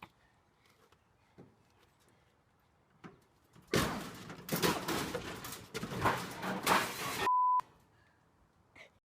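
About 3.5 seconds of loud, noisy clatter and rustling, cut off abruptly by a short, pure electronic beep at one steady pitch.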